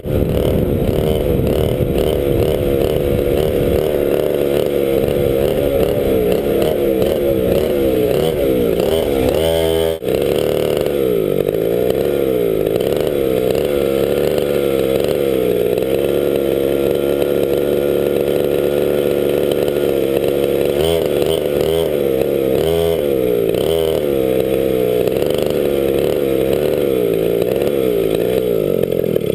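A 100cc McCulloch MC8 two-stroke kart engine running at low speed, its pitch wavering up and down, with a brief drop about ten seconds in.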